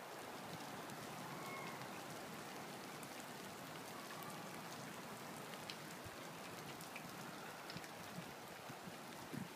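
Falling snow pattering on dry leaves and ground: a faint, steady hiss with scattered tiny ticks.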